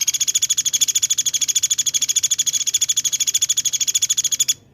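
Songbird's rapid-fire trill ('tembakan'), one fast even run of a dozen or more high chirping notes a second, from a recorded training track for cage birds. It cuts off abruptly near the end.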